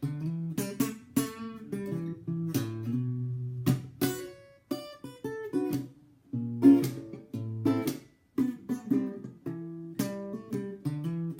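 EKO NXT parlour-size acoustic guitar being played, a mix of picked notes and strummed chords that ring on, broken by several brief pauses.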